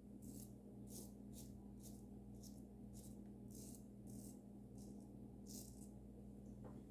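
Safety razor with a Lithe head scraping through lathered stubble in short strokes, roughly two a second, on a pass against the grain.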